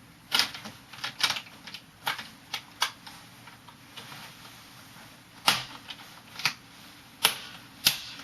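Plastic retaining clips of a Lenovo G470 laptop's LCD front bezel snapping loose as the bezel is pried off: about ten sharp clicks at irregular spacing, a few of them louder.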